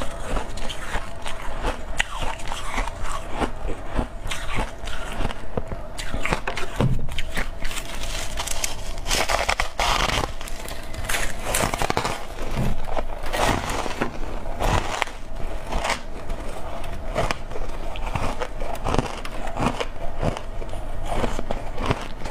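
Freezer frost being bitten and chewed close to a lapel microphone: irregular crunching and crackling, under a faint steady hum.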